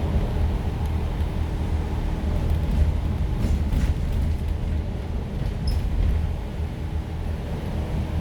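Heavy rain falling, heard as a steady noise under a strong low rumble.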